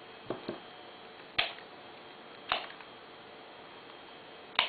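Tulip stems and cut twig pieces handled and gathered into a bunch, giving about five short clicks and taps spread over four seconds.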